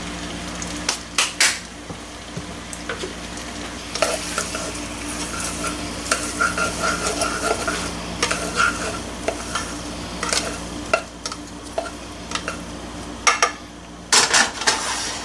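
Ziti pasta being stirred in a saucepan with butter and olive oil over low heat, the utensil scraping and clinking against the pan, with a light sizzle. The sharpest clinks come about a second in and near the end.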